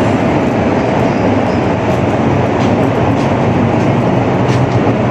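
Steady, loud machinery rumble and hum filling the enclosed steel vehicle deck of a roll-on/roll-off ferry, with a few faint taps over it.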